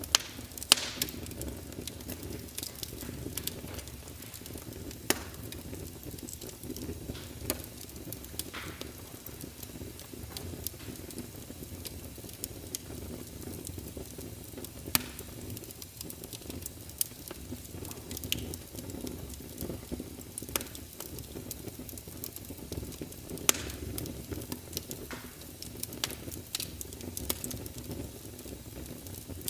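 Wood fire crackling in a fireplace: irregular sharp pops and snaps, a few of them loud, over a steady low rush.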